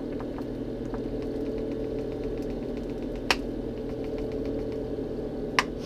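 Steady hum of running electric cooling fans, with two short sharp clicks, one about three seconds in and one near the end, as soil is poured from a plastic cup.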